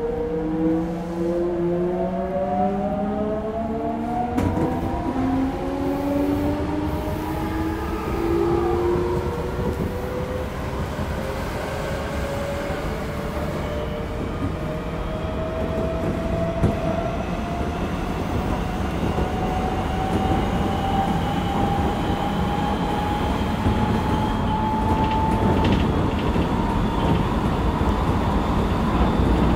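Odakyu 1000 series electric train heard from inside the car as it picks up speed. The motor and inverter whine rises in pitch, several tones at first; about nine seconds in the others drop away and one tone keeps climbing slowly, over the steady rumble of the wheels on the track.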